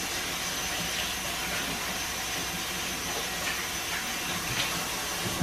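Kitchen tap running steadily into the sink as hands are washed under the stream.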